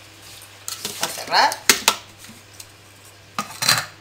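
Stainless steel food-processor jug and its lid being handled: a few light clinks, a rising scrape about a second in, a sharp knock, then a short clatter near the end.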